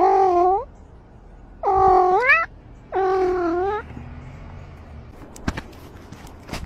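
Cat meowing three times, each meow under a second long, the second one rising in pitch at its end. A few short clicks follow near the end.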